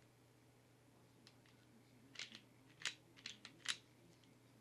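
Tokarev pistol being function-checked: a handful of sharp metallic clicks from its slide and hammer action, the two loudest about three and three-and-a-half seconds in.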